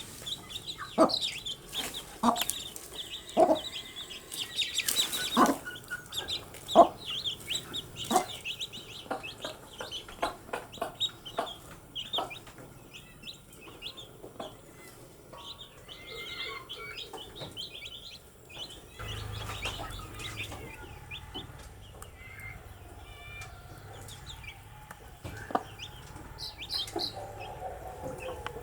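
Baby chicks peeping in quick high chirps, with frequent short, lower, sharper sounds mixed in through the first half. A low steady rumble comes in about two-thirds of the way through.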